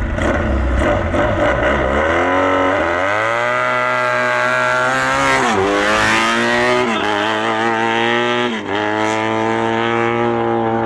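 Mini pulling tractor's engine revving up as it accelerates away, climbing over the first few seconds and then holding at high revs. The revs dip briefly and recover three times in the second half.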